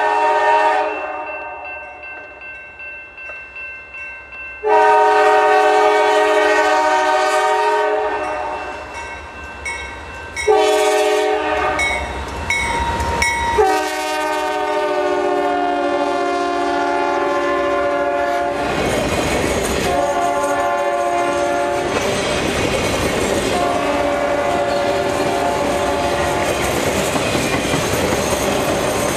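Norfolk Southern diesel locomotive's air horn sounding for a grade crossing: the end of one blast, a long blast, a short one, then a long blast held as the locomotives pass. Then the engines rumble by and the train's trailers roll past with steady clickety-clack of wheels on the rail joints.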